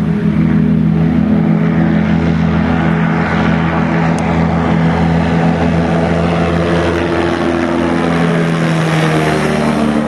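Engine and propeller of an Excalibur two-seat pusher light aircraft running steadily at takeoff power as it lifts off and climbs. A steady, loud drone.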